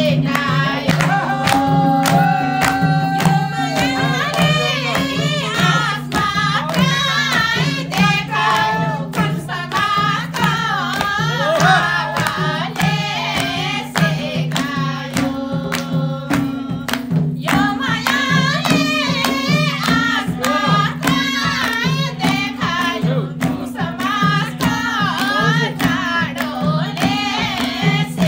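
Nepali dohori folk song: voices singing over a steady percussion beat, with a low drone held beneath.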